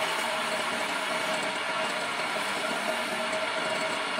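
Homemade wood lathe running, its electric motor giving a steady hum with a constant tone, while a hand chisel scrapes the spinning wooden stair baluster.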